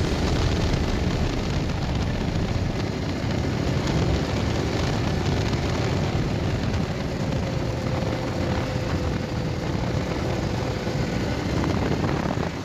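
Yamaha MT-15 motorcycle's single-cylinder engine running steadily on the move, with rushing wind and road noise over the handlebar-mounted microphone.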